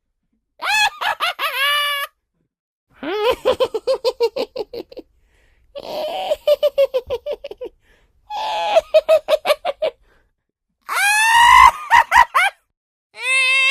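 Witch cackling laughter in a high-pitched voice: about six separate bursts of rapid laughing pulses, each a second or two long, one opening with a rising shriek.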